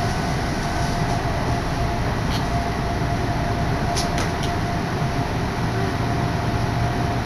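Odakyu Odawara Line commuter train heard from inside the carriage while running: a steady rumble with a faint high whine, and a few brief clicks about two and four seconds in.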